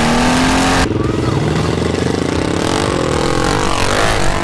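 Off-road vehicle engine revving hard under acceleration, its pitch climbing, then a sudden switch just under a second in to a steadier engine note.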